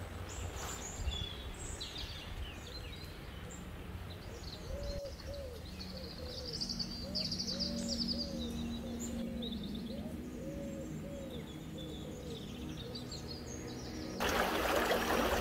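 Small birds chirping and trilling, with a run of low, arched, cooing calls in the middle over a low outdoor rumble. Near the end a sudden loud rush of noise, like running water, takes over.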